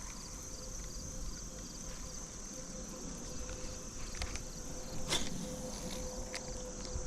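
Steady high-pitched insect chorus with an even pulsing rhythm, over a low rumble. A few faint clicks come in the second half, the clearest about five seconds in.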